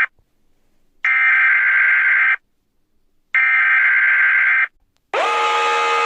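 Electronic nuclear-alarm siren sounding as long, even buzzing tones, each about a second and a half, with a second of silence between them, twice. About five seconds in it changes to a lower tone that swoops quickly up in pitch and then holds.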